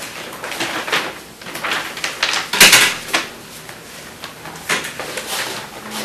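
Paper sheets being handled and shuffled on a table close to the microphones, in a string of short rustling bursts, the loudest a little under three seconds in.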